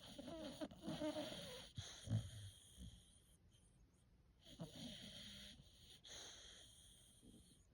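A four-month-old Bullmastiff puppy snoring in deep sleep: two long snoring breaths. The first, louder one fills the first three seconds, and the second starts about halfway through.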